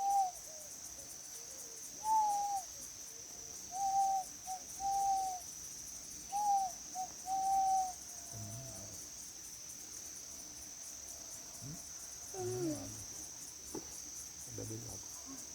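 A bird giving short, clear hooting calls, singly and in quick pairs, through the first eight seconds or so. Behind it runs a steady high chirring of insects.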